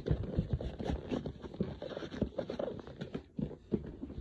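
Irregular knocks, taps and rustles of things being handled and packed into a box, close to the microphone.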